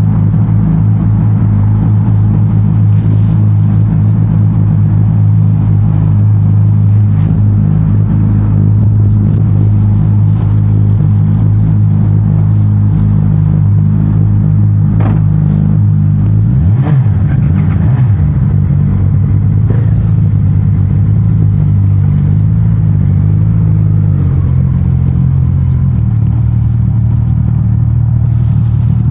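Suzuki GSX-S 1000 GT's inline-four engine running through its stock exhaust at a mostly steady, low speed, with a brief rev about seventeen seconds in.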